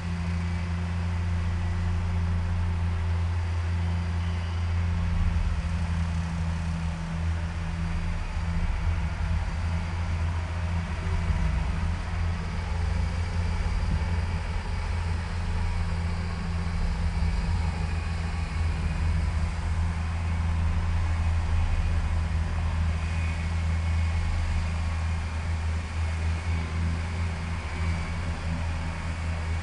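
Off-road 4x4's engine running at a steady low speed, a continuous deep hum with no revving.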